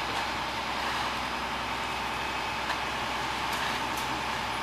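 Concrete mixer truck's engine running steadily while it discharges concrete down its chute, with a couple of faint taps about two and a half and three and a half seconds in.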